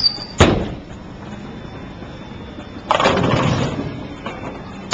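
Bowling ball released onto the lane, landing with a loud thud about half a second in, rolling, then crashing into the pins about three seconds in with a clatter that lasts just under a second.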